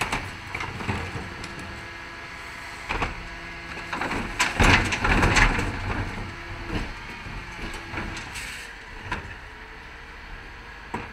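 Terberg TA-DE bin lift on a Dennis Elite 6 refuse truck lifting and tipping wheelie bins of general waste over the truck's running engine. The bins bang and rattle at the top of the lift, loudest about four to six seconds in as the rubbish falls into the hopper. Knocks follow as the lift lowers.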